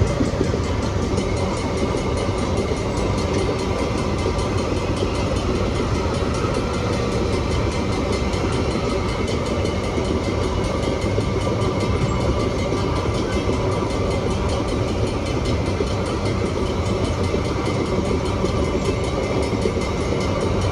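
A long freight train of empty wagons rolls steadily past, a continuous loud rumble and rattle of wheels on rail.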